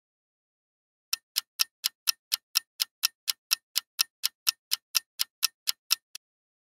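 Clock-ticking countdown-timer sound effect: sharp, evenly spaced ticks, about four a second. It starts about a second in and stops shortly before the end.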